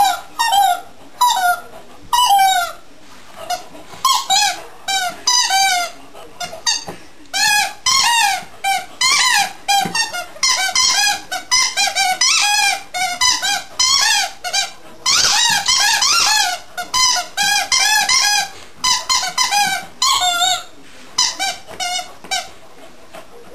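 Squeaky dog toy squeaking over and over as a beagle chews it, in irregular runs of short squeaks with a longer squeal about two-thirds of the way through.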